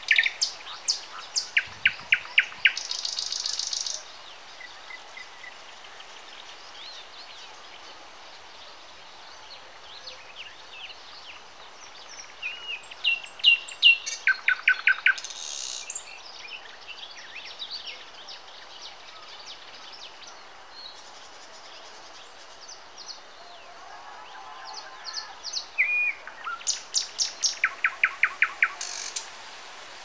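Nightingale singing three song phrases about ten seconds apart. Each phrase is a fast run of repeated sharp notes, clear whistles and a buzzy rattle, with quieter pauses between phrases.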